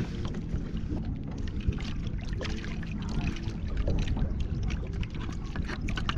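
Water sloshing against a kayak hull over a steady low rumble, with a scatter of small clicks and taps from fishing tackle being handled: the line and an orange float.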